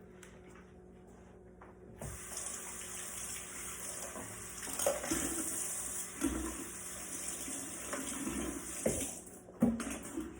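Kitchen tap turned on and running steadily for about seven seconds, then shut off, with a few light knocks and clatters while it runs.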